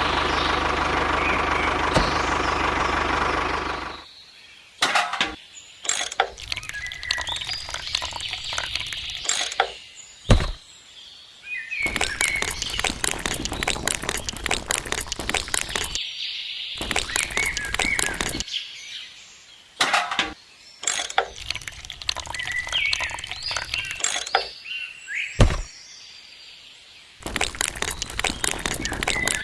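A small vehicle engine running steadily, cutting off after about four seconds. After it come stretches of rapid clicking, tapping and scraping from small-scale building work, with birds chirping.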